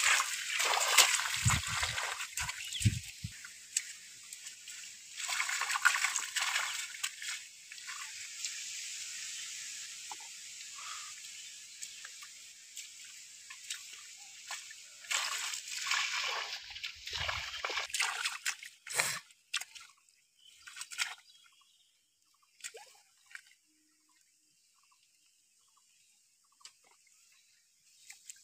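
Bare feet and hands splashing and sloshing through shallow water over grass, in bouts of a few seconds. The splashing fades to a few faint drips and splashes over the last several seconds.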